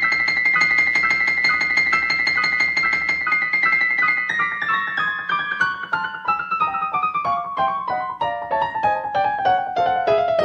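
Background piano music: quick repeated notes over a held high note, then a run of notes that steps steadily down in pitch from about four seconds in.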